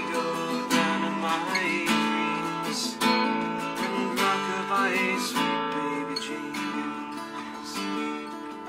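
Acoustic guitar music with steady strumming, an instrumental passage of a song.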